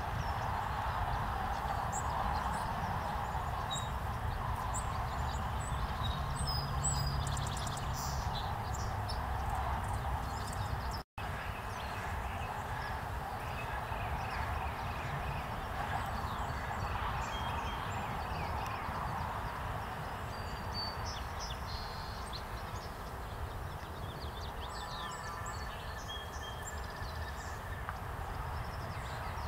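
Steady outdoor background noise with scattered short, high chirps and twitters from small birds, heard a few at a time. The sound cuts out for a moment about eleven seconds in.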